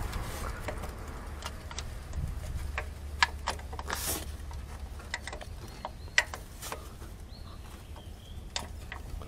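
Hands refitting a part deep in a boxer engine's cramped engine bay during a spark-plug change: scattered light clicks and taps of parts being handled, with a short scraping rustle about four seconds in.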